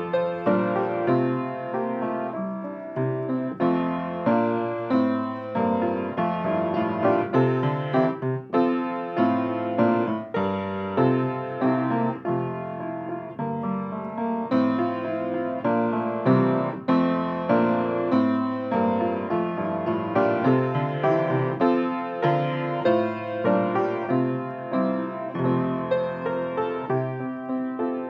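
A piano postlude: chords and a melody line played at a moderate pace, each note struck and left to ring as it fades.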